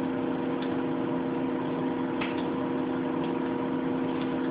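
Steady hum of a computer's cooling fan, holding several steady tones, with a few faint clicks about a second apart.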